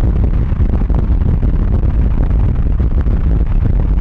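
Wind rushing over the microphone from a car moving at road speed, a loud, steady low rumble mixed with road noise.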